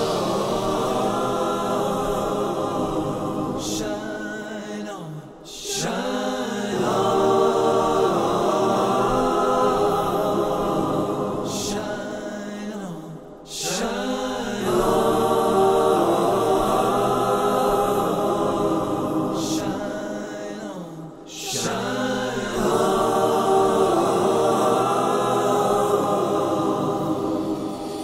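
Many voices singing a chant-like chorus without drums, holding long notes in phrases of about eight seconds, each tailing off before the next begins.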